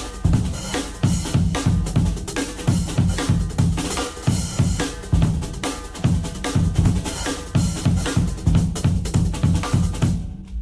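Drums playing a fast, busy pattern of kick drum, snare and cymbals, with the kick heavy and dense; the drums drop out abruptly just before the end.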